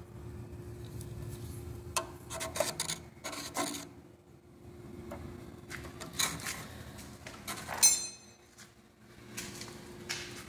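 Steel scriber scraping and scratching in short, irregular strokes on the face of a VW AP aluminium cylinder head, marking it out. A sharp metallic click with a brief ring comes about three-quarters of the way through, over a steady machine hum.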